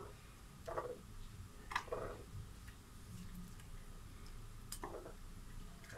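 Prunes being rinsed by hand in a ceramic bowl of water: a few faint, scattered clinks and wet knocks as fingers work the fruit against the bowl, over a low steady hum.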